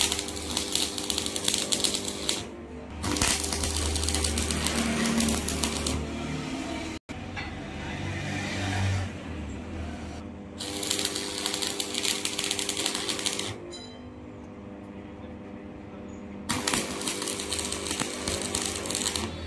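Stick (arc) welding on iron grill bars: the electrode's crackling sizzle comes in four bursts of two to three seconds each, starting and stopping abruptly as the arc is struck and broken. A steady low hum runs underneath.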